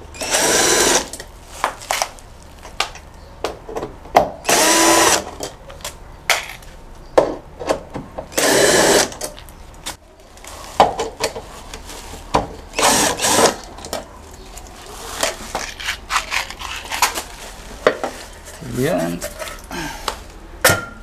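Cordless drill-driver running in four short bursts of about a second each, undoing the screws that hold the roof panels on, with small clicks and knocks of handling between the bursts.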